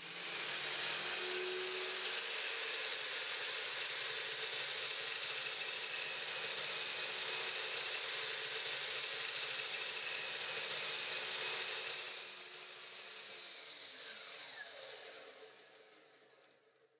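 GMC DB305SMS 305 mm sliding compound mitre saw, 1800 W, starting up and running steadily at full speed. About 12 seconds in it is switched off and the blade winds down with a falling whine, dying away a few seconds later.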